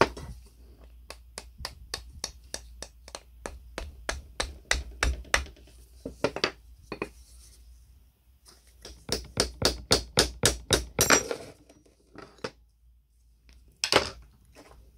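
Cast metal parts of an old electric sheet metal shears' housing knocking together in fast runs of sharp taps, about four to five a second. A single louder knock comes near the end as the housing is set down on a wooden bench.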